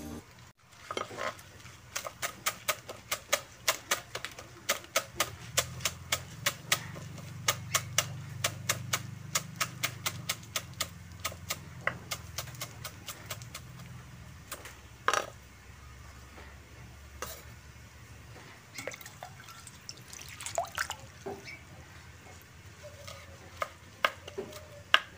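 Kitchen knife chopping fresh herbs on a wooden chopping board: a quick, steady run of sharp chops, about two to three a second, then slower, scattered chops in the second half.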